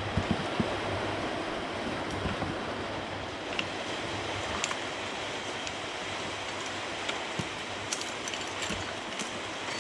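A steady hiss of background noise with scattered light clicks and taps of hands and tools working on a Husqvarna 136 chainsaw, fitting its cutter bar and chain. The saw is not running.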